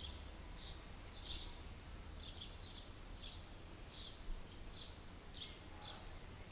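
A small bird chirping over and over, faint, short high chirps about twice a second, over a low steady rumble.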